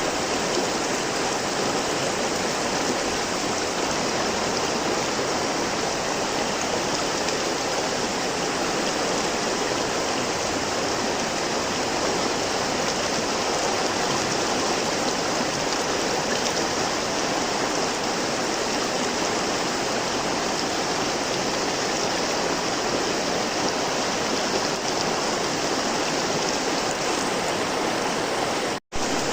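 River water flowing steadily, an even rushing wash with no change in strength. It cuts out to silence for an instant near the end.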